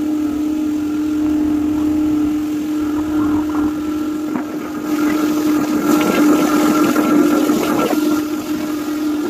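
Motorboat engine running at a steady drone, with water rushing and splashing against the hull, louder for a few seconds in the second half.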